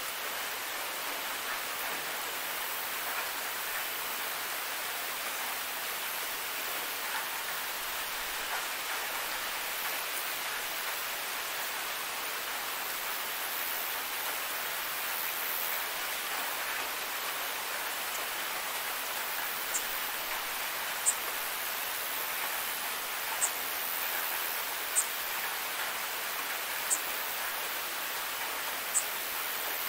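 Steady rain falling on a grassy meadow: an even, unbroken hiss. In the second half a few sharp, high ticks stand out, about one every couple of seconds.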